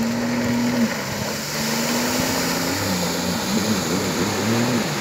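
Jet ski engine running at speed, holding a steady pitch. The pitch drops away about a second in, comes back, then swings quickly up and down several times near the end.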